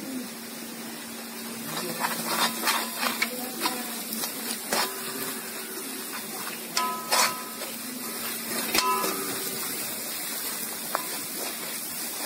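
Metal spoon scraping and knocking against a metal kadai as onions and masala powder are stirred, over a steady sizzle of frying. The scrapes come in a run through the middle and thin out near the end.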